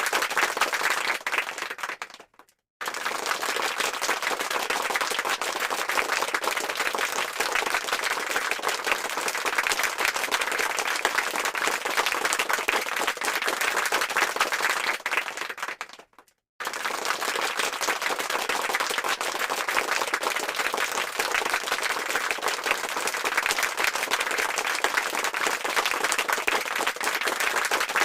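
Applause sound effect: a crowd of many hands clapping densely. It fades out and stops briefly about two seconds in and again about sixteen seconds in, each time starting again at full strength.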